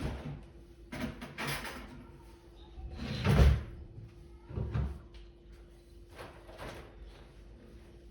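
A series of knocks, thumps and scrapes from things being handled, about six in all. The loudest comes about three and a half seconds in.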